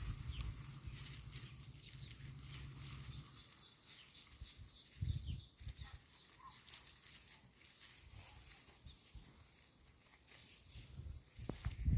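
Faint sounds of a hamster moving in grass: light rustling and scratching, with a brief cluster of soft knocks about five seconds in.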